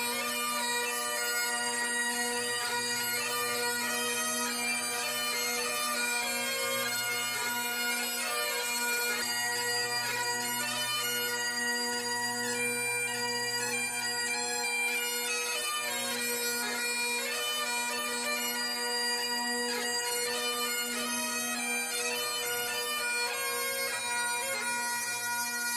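Instrumental background music: a melody played over a continuous low drone.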